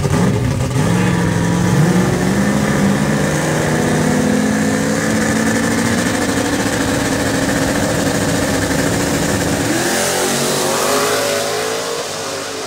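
X275 radial-tire drag cars at full throttle on a pass. The engine note climbs in steps with each gear change over the first few seconds, then holds a steady high note. About ten seconds in it changes to a higher, rising engine note.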